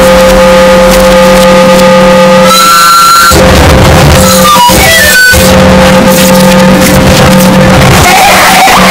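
Harsh noise music: a wall of saturated, distorted noise held at constant full loudness over steady low drones. The texture breaks off and shifts abruptly about two and a half seconds in and again near the end, with a quick run of short bleeping tones at changing pitches around the middle.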